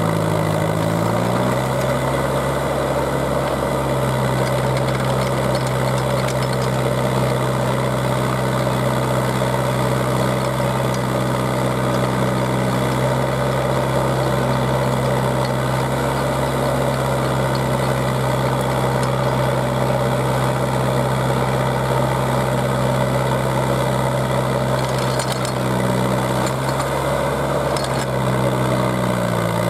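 Engine of a small auger drill rig running steadily while the auger drills into the ground. The engine note dips and recovers briefly about a second in and again near the end.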